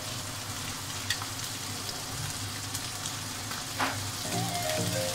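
Menemen, eggs scrambled with tomatoes, sizzling steadily in a nonstick frying pan. A silicone spatula stirs it, with a light knock about a second in and another near the end.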